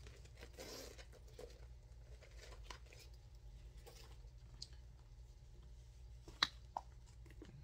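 Faint rustling of small items being handled over a low steady hum, with two sharp clicks close together near the end as a card case is picked up.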